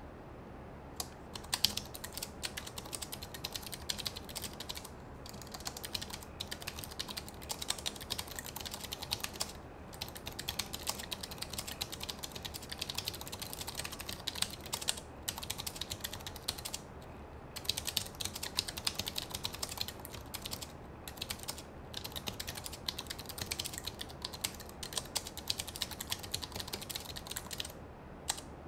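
Fast typing on a Gigabyte Aorus 15G laptop's Omron mechanical keyboard: a dense run of key clicks in bursts, broken by brief pauses every few seconds.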